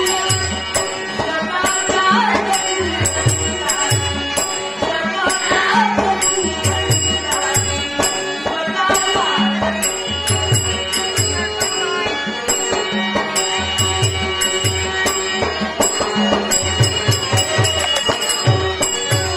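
Live folk-theatre accompaniment: a harmonium holding steady tones while a hand drum beats a brisk repeating rhythm and bell-like metal strikes keep time.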